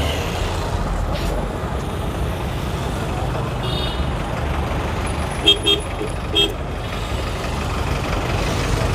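Busy street traffic with engines running steadily. A vehicle horn gives three short honks about two thirds of the way through.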